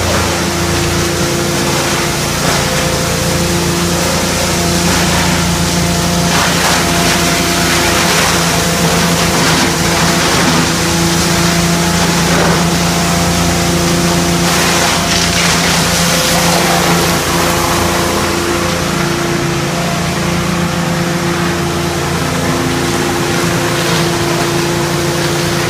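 Wood sawdust machine (electric wood crusher with blower and cyclone) running steadily with a constant hum, with brief harsher bursts here and there as scrap boards and pallet wood are fed in and ground.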